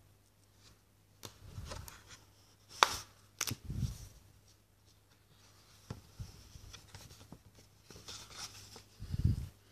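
A hardcover exhibition catalogue being handled and opened: paper rustling and sliding, a couple of sharp taps about three seconds in, and dull thumps of the book against its surface, once about four seconds in and again near the end.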